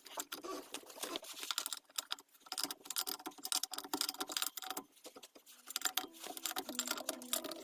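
Quick, irregular metallic clicks and taps of a wrench working the car's wheel bolts as the wheel is loosened. Background music comes in near the end.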